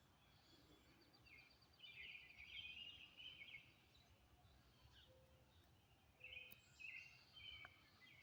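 Faint bird calls: short chirping phrases in two spells, with a quick high trill about a second in, over low background hum.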